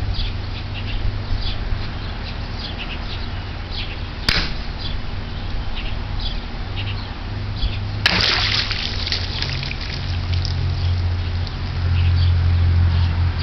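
A sword strikes a plastic gallon jug of water about eight seconds in: a sharp hit, then about a second of splashing water. Birds chirp throughout, and a single sharp click comes about four seconds in.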